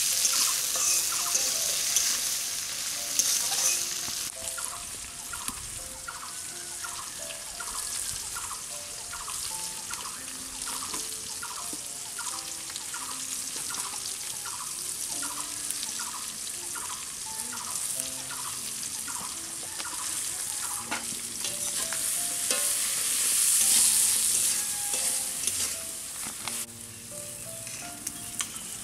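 Onions, green chillies and bay leaves sizzling in hot oil in an iron kadai while a metal spatula stirs them, the sizzle loudest in the first few seconds and swelling again about three-quarters through. Light background music with a repeating tune runs underneath.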